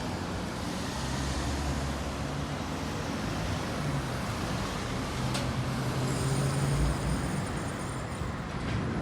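Diesel-electric hybrid city bus running in street traffic, a steady low engine drone that swells a little past the middle. A sharp click comes about five seconds in, and a faint high whine holds for a couple of seconds after it.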